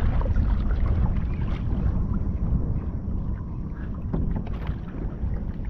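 Steady low rumble of wind buffeting the microphone while moving over water in a kayak, with a few faint short knocks.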